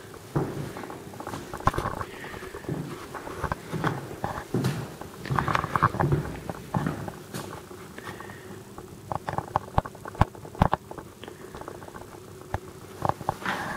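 Irregular footsteps and small knocks, with rubbing handling noise from the handheld camera, as someone walks through an empty room and into a kitchen.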